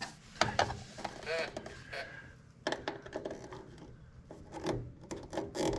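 Small clicks, scrapes and creaks of a plastic park-light lens being handled and fitted into its housing, with screws being driven to hold it.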